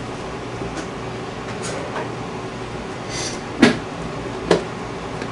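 Two sharp knocks of a bowl against a saucepan, about three and a half and four and a half seconds in, as fresh pineapple is tipped into the pot, over a steady low hum.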